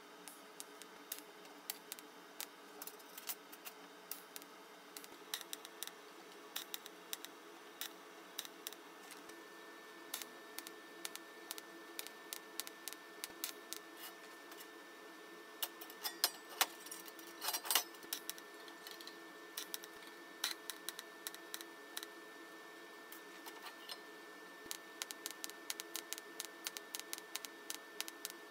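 TIG torch tack-welding thin steel grill wire: irregular sharp crackling clicks, thickest about two thirds of the way in, over a steady hum. A thin steady high tone comes in about a third of the way through.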